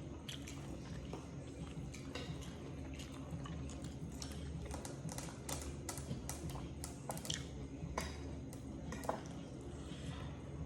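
Person chewing food, with scattered soft mouth clicks and smacks over a low steady hum.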